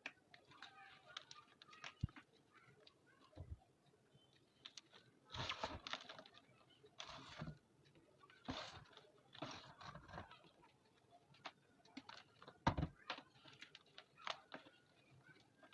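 Reformed yellow gym chalk being crushed: several dusty crunches lasting about half a second each, bunched in the middle, with scattered small cracks and ticks between them and one sharp crack near the end.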